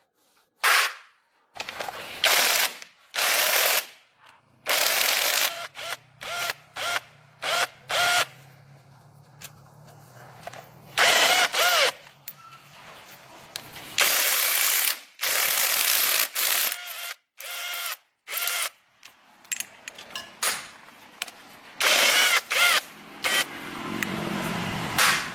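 Mechanical tool noise: a long series of short, uneven bursts of clicking and rasping, some with a wavering squeak.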